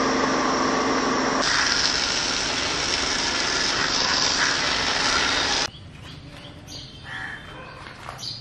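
Pressure-washer jet spraying water onto a scooter, a loud steady hiss with the washer's motor humming under it at first. About five and a half seconds in it cuts off abruptly, leaving a quiet outdoor background with birds calling.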